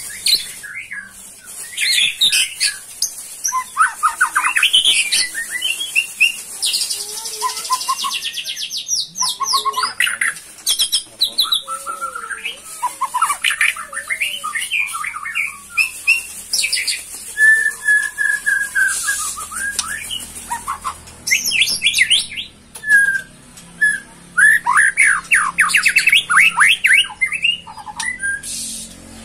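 A bird singing loudly and close by: a fast, varied run of chirps, whistles and trills with many quick rising and falling notes, and a buzzy rapid trill about seven seconds in.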